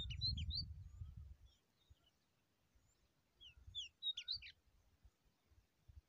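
Bird chirping: a quick burst of short, high chirps at the start and another about three and a half seconds in, with faint chirps in between. A low rumble sits under the first second and a half.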